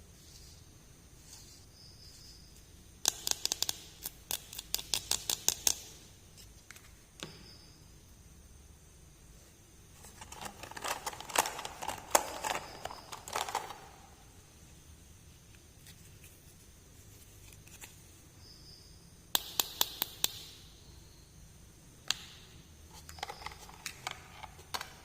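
Small plastic toy pieces and packaging being handled close up: several bursts of quick, sharp clicks and taps, with a longer scratchy, rustling stretch in the middle.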